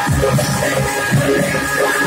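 Loud dance music with a heavy, regular bass beat and a held high note over it.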